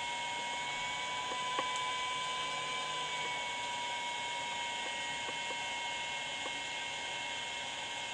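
Steady whir of a Puhui T862++ infrared BGA rework station running while it heats a GPU chip, with a thin steady whine over the hiss. There are a few faint clicks, the clearest about a second and a half in.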